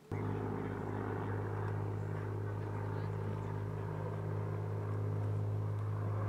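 Steady mechanical drone, like a running engine, with a constant low hum and a rushing noise over it. It starts abruptly just after the beginning.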